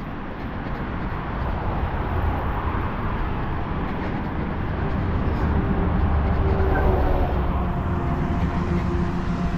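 Road traffic passing: a steady rumble of vehicles, with an engine's hum coming in about halfway and growing louder.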